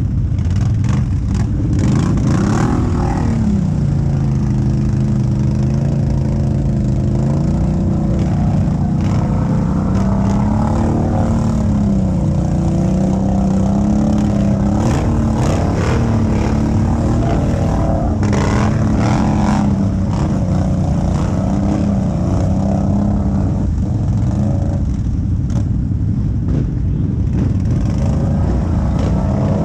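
ATV engine running on a trail ride, its pitch dropping about three seconds in, then climbing and falling again several times as the throttle is worked.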